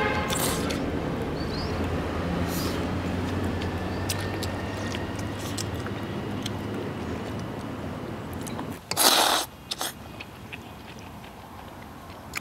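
A low engine hum of a passing vehicle fades away over the first eight seconds, with a few light clicks. About nine seconds in comes one short, loud slurp of rice noodles.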